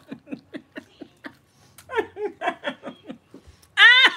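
A woman laughing in quick short pulses, softly at first, then breaking into loud laughter near the end, each 'ha' falling in pitch.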